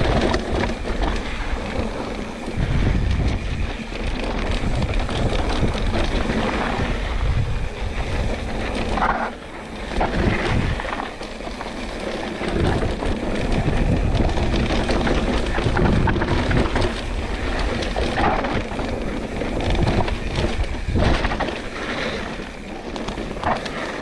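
Wind buffeting the camera microphone on a fast mountain-bike descent, with the Pivot Switchblade's tyres running over dry, loose dirt and the bike rattling and knocking over bumps.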